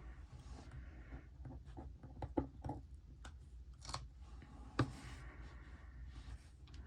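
Quiet handling of a sticker sheet and paper: soft rustling and scattered light clicks, with a few sharper ticks about two and a half, four and five seconds in.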